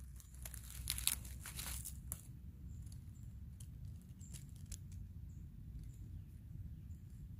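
Rustling and crinkling, like vegetation or leaf litter being pushed through or handled. A dense burst fills the first two seconds, followed by a few scattered snaps and clicks, over a steady low rumble.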